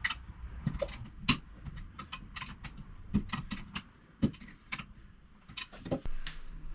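Metal plumbing fittings and a shower valve being handled and fitted by hand: irregular small clicks and taps, a few a second, as the compression fittings are taped and threaded on.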